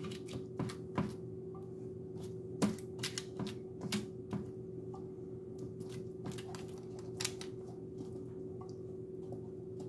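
Silicone basting brush dabbing olive oil onto beet slices laid on parchment paper, and dipping into the oil bowl: scattered light taps and paper crinkles at irregular intervals, over a steady low hum.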